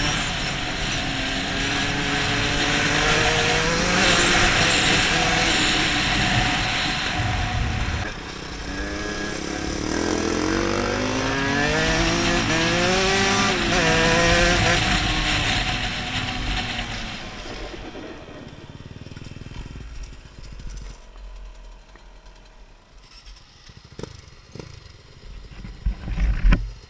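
Enduro dirt bike engine revving hard through the gears, its pitch climbing and dropping with each shift, with wind rushing over the camera microphone. The engine dips briefly about eight seconds in, climbs again, then eases off after about seventeen seconds and drops to a much quieter run. A couple of short, louder bursts come near the end.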